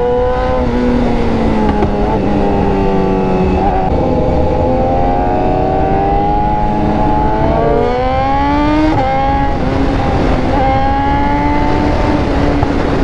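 BMW S1000RR inline-four with an SC Project exhaust pulling hard at highway speed: the engine note climbs steadily and drops sharply at the upshifts, about 4 s and 9 s in. Wind rushes past the rider's camera.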